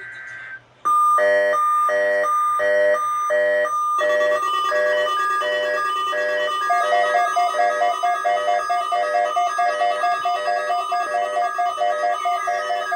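Pulsed electronic alarm tones beeping about twice a second, joined about four seconds in by more overlapping alarm tones, with a falling whine near the end.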